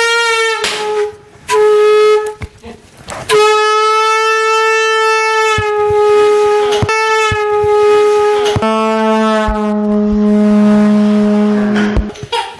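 Loud noisemaker horns blown to wake a sleeper: a blast that settles onto one steady mid pitch, a short break and a brief second blast, then a long held blast. About two-thirds of the way through, a second, lower horn joins, and both stop shortly before the end.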